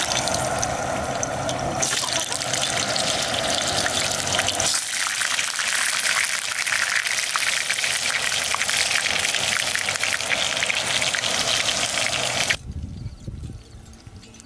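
Food sizzling in a hot pan on a portable gas stove, a dense hiss full of fine crackles that stops suddenly near the end.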